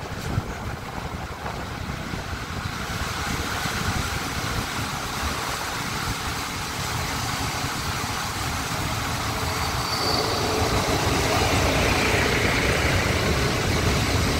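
PKP Intercity SM42 diesel shunting locomotive running as it comes by on the adjacent track, heard from an open window of a slowly moving train, with the rumble and rail noise of both trains. It grows louder as it draws near, and its coaches roll past close by near the end.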